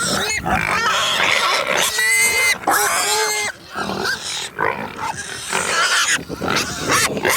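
A group of pigs grunting and squealing together, with high-pitched squeals loudest around two to three seconds in.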